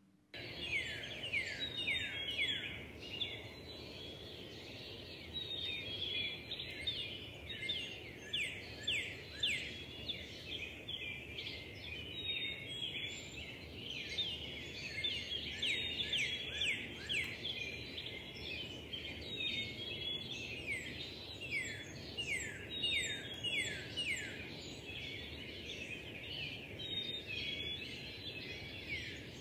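Recorded birdsong played as the dance's soundtrack: many birds chirping in quick, downward-sliding calls over a steady background hiss. It cuts in suddenly from silence right at the start.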